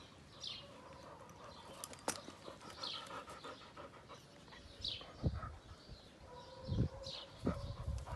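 A dog panting with its mouth open. A few short, high, falling chirps recur every couple of seconds, and there are some low thumps in the second half.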